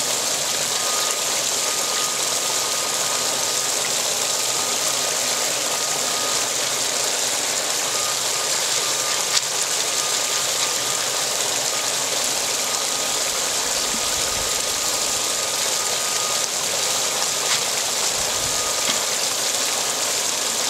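Pumped water rushing steadily down a small 3-foot sluice box, with a faint steady high tone under it and a few light clicks.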